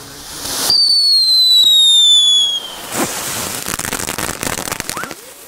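Röder Schockerlino whistling firecracker going off. A short hiss is followed by a loud whistle that falls slowly in pitch for about two seconds. About three seconds in it bursts into a couple of seconds of crackling pops.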